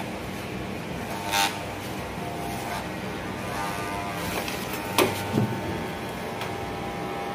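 Corded electric hair clippers buzzing steadily as they shave a dog's coat, with short sharp sounds about a second and a half in and about five seconds in.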